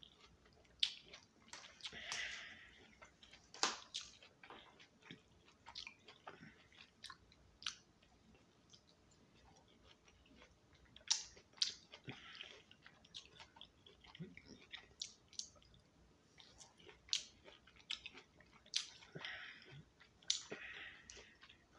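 A person chewing and biting orange slices, close up: irregular sharp mouth clicks and smacks, with a few longer, noisier wet stretches about two seconds in, about twelve seconds in, and again near the end.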